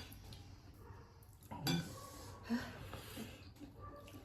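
Quiet eating sounds at a meal: a few light clinks of dishes or cutlery on a plate, with soft mouth noises between them.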